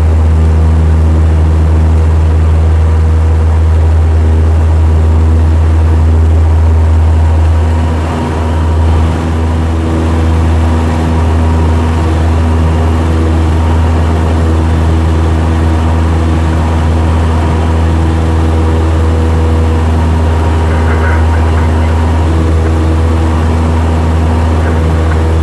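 Cessna 172's piston engine and propeller running steadily, a loud low drone heard inside the cabin, with a brief dip in level about eight seconds in.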